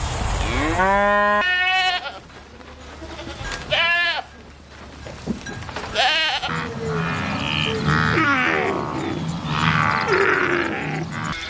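Sheep bleating: a few separate calls in the first half, then several overlapping calls and rustling in the second half.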